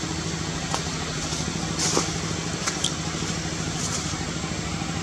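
A steady low mechanical hum like an idling engine, with a few short, sharp high chirps about two seconds in and again a little later.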